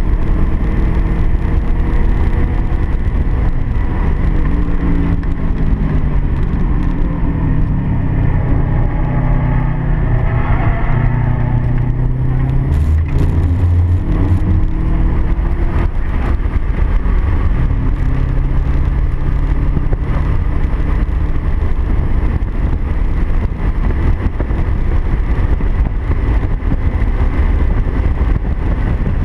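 Car engine under hard driving on a race track, its pitch climbing and falling repeatedly as it accelerates, shifts and slows for corners, with tyre and wind noise underneath. A few brief knocks come about twelve to fifteen seconds in.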